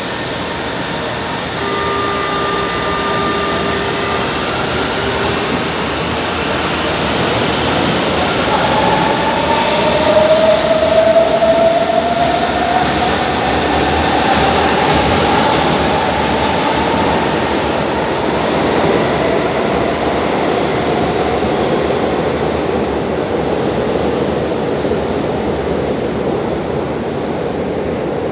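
São Paulo Metro Line 1 train running through a concrete underground station with steady, loud wheel and rail rumble. About ten seconds in, its traction motors give a whine that rises in pitch for several seconds as it picks up speed.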